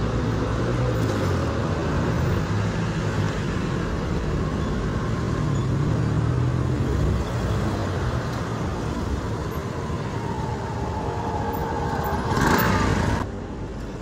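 Motor vehicle engine running steadily at low speed with road and wind noise on a dirt road. A brief louder swell just after 12 seconds cuts off sharply about a second later.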